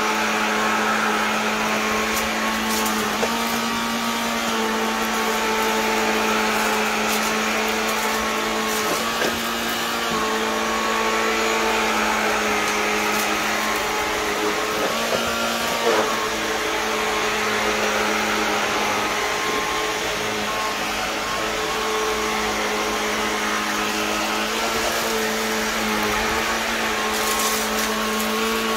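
Vacuum cleaner running steadily: a constant motor hum whose pitch shifts slightly, with a rushing of air that swells and fades every few seconds as it is pushed back and forth, and a few brief clicks.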